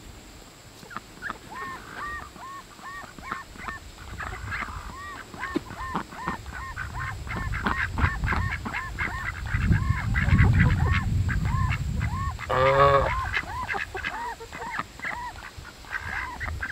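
Domestic ducks and a goose calling: a fast, steady run of short calls several per second, with one loud, close call about three-quarters of the way through. A low rumble rises and fades around the middle.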